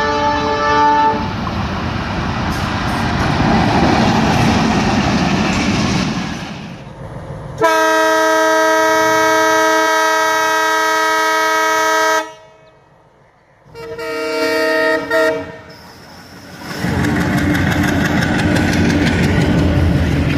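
Broad-gauge diesel locomotive horns sounding a chord of several tones: one blast ends about a second in, then WDM-2Ca locomotive BR-6413 gives a long blast of about four and a half seconds, followed by a short blast a couple of seconds later. Between the blasts and after them, a train runs past with its wheels rumbling and clattering on the rails.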